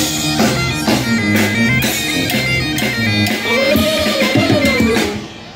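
A rock-and-bagpipe street band playing: bagpipes over electric guitar and drums. The music breaks off near the end.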